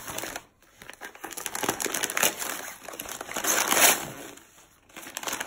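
Gift wrapping paper crinkling and rustling as a present is torn open by hand, in quick irregular bursts, loudest about three and a half to four seconds in.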